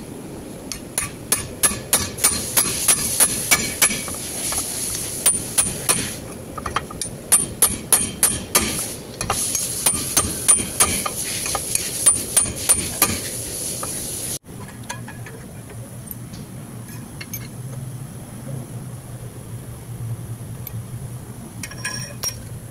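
Rapid hammer blows on steel, about three a second with a brief pause midway, each ringing sharply, as a rear wheel bearing is driven onto an axle shaft. The hammering stops abruptly about fourteen seconds in, leaving a low hum and a few light metal clinks near the end.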